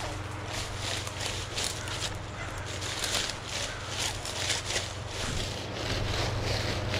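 Footsteps and a metal detector's search coil swishing through thick leafy vine ground cover, a run of irregular soft rustles, over a steady low hum.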